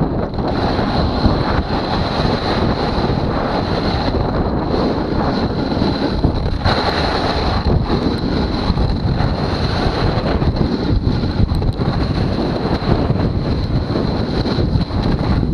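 Wind buffeting the microphone of a snowboarder riding fast, a loud, steady rush with a thin high hiss running through it.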